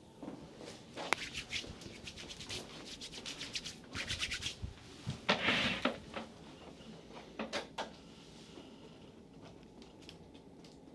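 Hands rubbing and sliding over skin during a massage: a run of short rubbing strokes, quickest and loudest in the middle, then dying away.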